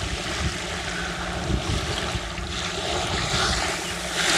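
Small waves washing onto a sandy shore, with wind buffeting the microphone; the wash swells louder near the end.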